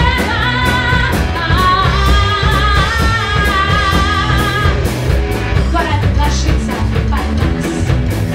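Live rock band: a woman singing over electric guitar and drum kit. Her held sung line ends about five seconds in, and the band plays on.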